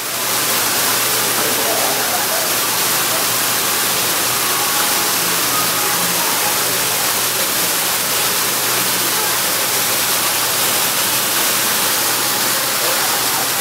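Artificial waterfall: a sheet of water running down a wall of glass panels and splashing into a shallow pool, a steady, even rush.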